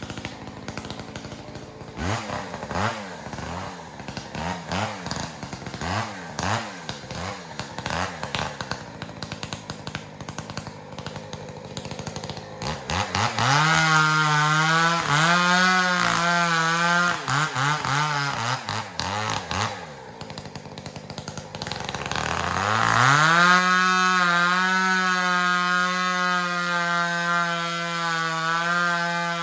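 Two-stroke chainsaw, a Husqvarna 372XP with a ported muffler, first revved in a string of short blips, then held at high speed for about seven seconds. It drops back briefly, then revs up again and holds high for the last several seconds, its pitch wavering as it cuts.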